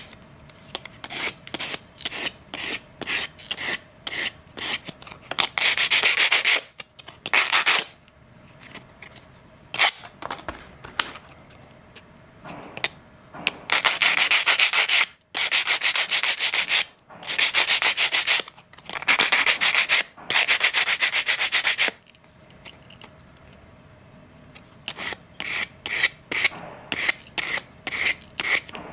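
Hand sanding a thin plastic servo cover's edges and corners with 220-grit sandpaper on a small sanding block: short scraping strokes about two a second, with louder stretches of fast, continuous rubbing about six seconds in and again in the middle, smoothing and rounding the trimmed corners.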